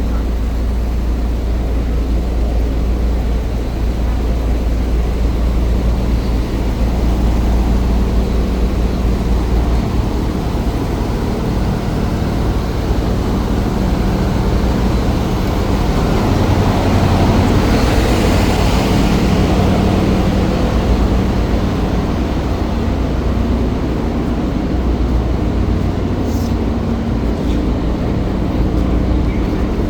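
A passenger boat's engine running steadily with a low hum while under way, with a brief swell of rushing hiss about two-thirds of the way through.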